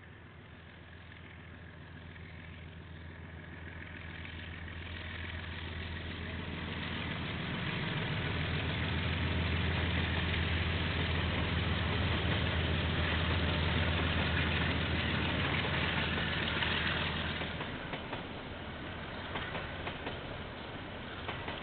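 Diesel locomotive passing, its engine hum growing steadily louder for about eight seconds, then dropping away abruptly a few seconds before the end, leaving clicks of wheels on the track.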